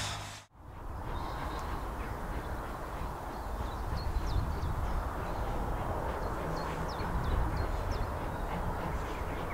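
Birds calling over a steady outdoor rumble of wind noise, with a distant steam locomotive working. The sound drops out briefly at a cut about half a second in.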